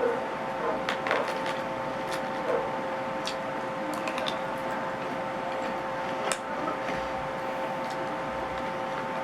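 Close-up eating sounds: scattered short crunches and clicks of biting and chewing crispy fried shrimp tempura, over a steady background hum.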